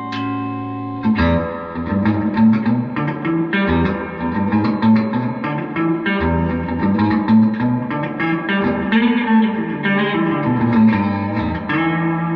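Electric guitar with PAF-style humbucker pickups played through a 1964 Gibson GA-77 RVT Vanguard tube amp: a ringing chord, a fresh pick attack at the start, then a busy run of single notes and chords. The amp's spring reverb is switched on.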